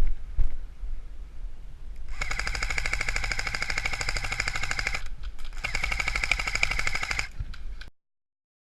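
Airsoft electric gun firing on full auto in two long bursts, a rapid even rattle of shots over the gearbox whir, the first starting about two seconds in and the second after a short pause. The audio cuts off suddenly near the end.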